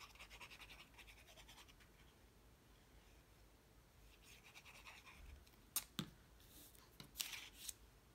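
Fine-tip glue bottle's nib scratching lightly across cardstock in quick strokes as glue lines are drawn, in two spells. About six seconds in come a few sharp taps and a short paper rustle.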